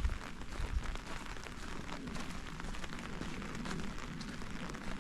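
Rain falling steadily, an even hiss of many small drop ticks, with a few low thumps in the first second.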